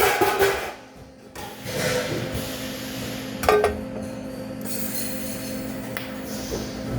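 Metal clinking twice, each strike ringing briefly, over a steady electrical hum.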